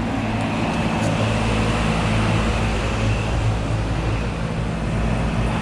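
Heat pump condensing units running: a steady machine hum with a faint high whine over the even rush of the fans, unchanging throughout.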